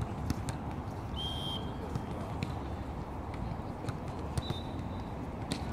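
Indoor volleyball court sounds: scattered taps and thuds of feet and ball on the court floor over a low room rumble, with a short high squeak about a second in and a fainter one near the end.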